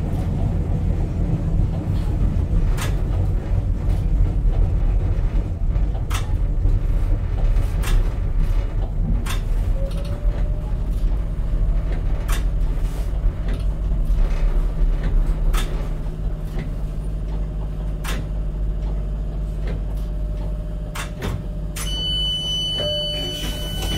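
Tyne and Wear Metrocar (Class 994) rolling over the track with a steady rumble and regular clicks of the wheels over rail joints, while a thin whine comes in about halfway. Near the end, as it stands at the station, a high electronic beep sounds: the door warning.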